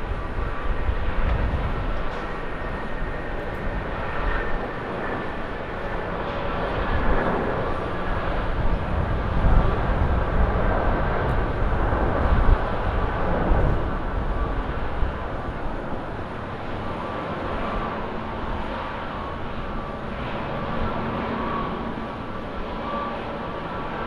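Airbus A330 twin-engine airliner at takeoff power through its takeoff roll, lift-off and climb-out: steady jet engine noise with faint whining tones, loudest around the middle as it lifts off and easing a little as it climbs away.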